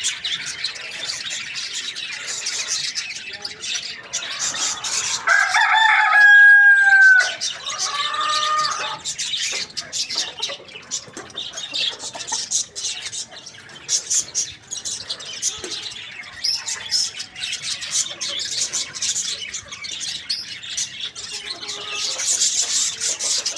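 A rooster crows once, about five seconds in, in one long, slightly falling call followed by a shorter call. Small birds chirp constantly in the background.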